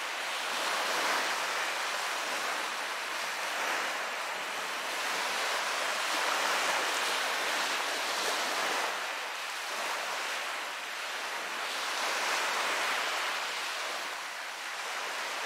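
Sea waves washing: a steady rush of water that swells and eases every few seconds.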